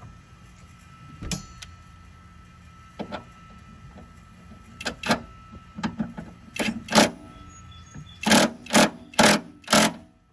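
Cordless power tool driving a suspension bolt that holds a catch-can bracket, run in short bursts that end in four quick bursts about half a second apart.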